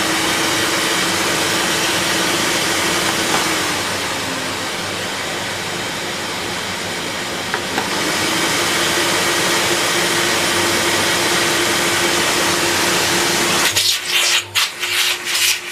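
Lux D790 Royal canister vacuum cleaner, made by Electrolux with an 1150 W motor, running with a steady whine. Its pitch and level drop about four seconds in, then rise again just after a control-button click near eight seconds as the suction setting is changed. Near the end the airflow sputters in quick, uneven pulses.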